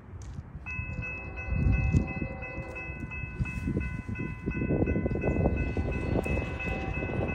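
Railroad grade-crossing bell starting to ring about a second in, a rapid, even run of ringing dings, the crossing's warning that a train is approaching. A gusty low rumble runs underneath and grows louder in the second half.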